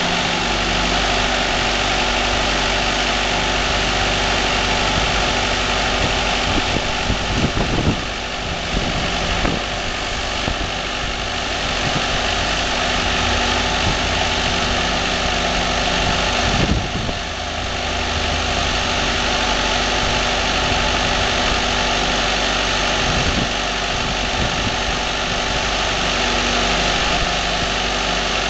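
A firewood processor's engine running steadily. A few short knocks come about eight seconds in, near seventeen seconds and more faintly near twenty-three seconds.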